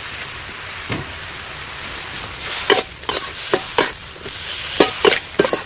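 Beef and bamboo-shoot stir-fry sizzling steadily in a hot pan, with a spatula scraping and knocking against the pan in quick, irregular strokes from about halfway through.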